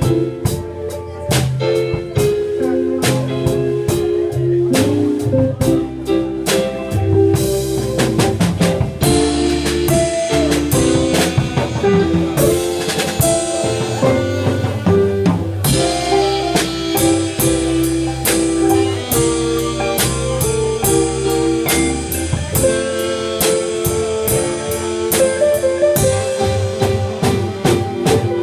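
Small live band playing a blues number: alto saxophone over keyboard and a drum kit keeping a steady beat.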